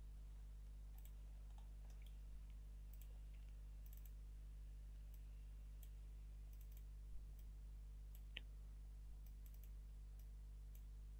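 Faint, scattered computer mouse clicks over a steady low hum.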